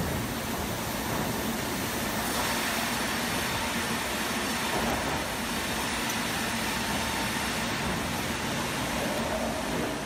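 Sawmill band saw running and cutting a log as it is fed through on the conveyor: a steady, even machine noise with a faint low hum underneath.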